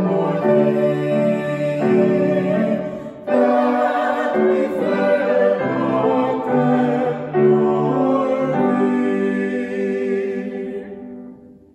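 Two voices, a woman and a man, singing a hymn together with piano accompaniment in sustained phrases. The last held note fades out near the end.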